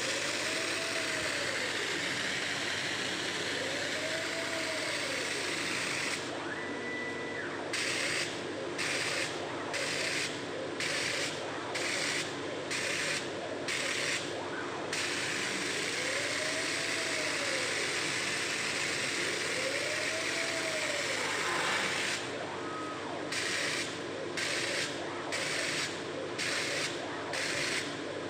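Four-head CNC fabric knife cutting machine running: a steady hiss and hum, with motor whines rising and falling in pitch every few seconds as the heads move. In two stretches the hiss stops and starts about once a second.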